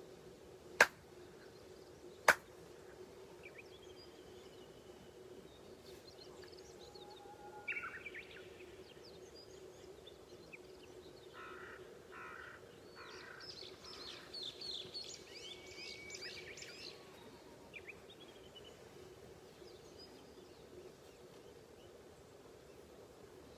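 Two sharp handclaps about a second and a half apart, the paired claps (kashiwade) of Shinto worship. Later, birds call over a steady low hum.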